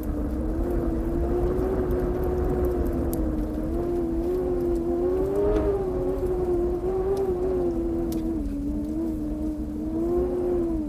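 A vehicle engine running with a steady drone whose pitch wavers slightly up and down, over a low rumble.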